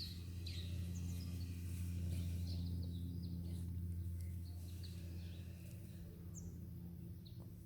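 Birds chirping with short, high calls over a steady low hum that fades away about two-thirds of the way through.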